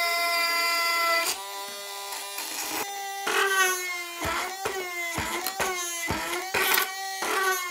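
Small DC motor of a homemade cordless hand drill, whining at a steady pitch. About a second in the bit starts cutting into the workpiece: the whine sags in pitch and recovers again and again as the motor loads up, with short scraping clicks at each bite.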